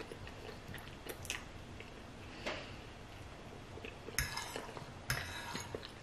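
Chewing a mouthful of spaghetti, with a fork clinking and scraping on the plate a few times, the loudest twice near the end.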